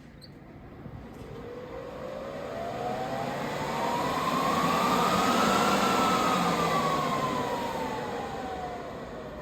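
Dell PowerEdge 2970 server's cooling fans spinning up: a rush of air with a whine that rises in pitch and loudness to a peak a little past halfway, then falls again as the fans slow down.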